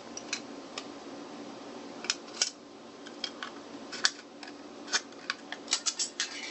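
Scissors cutting a strip from a thin aluminum drink can: a series of sharp, crisp clicks and crunches, coming faster near the end.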